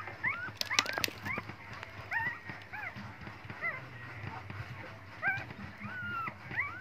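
Litter of very young puppies whimpering: many short, high, arching cries one after another. A few sharp clicks come about a second in.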